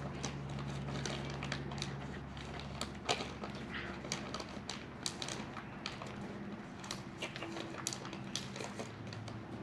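A feral tabby cat chewing beef jerky close to the microphone: irregular small clicks and crunches. A low steady hum underlies the first few seconds and fades about four seconds in.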